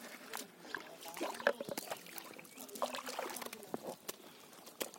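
Wet fish and a nylon cast net being handled: rustling of the mesh with scattered sharp slaps and clicks, the sharpest about one and a half seconds in.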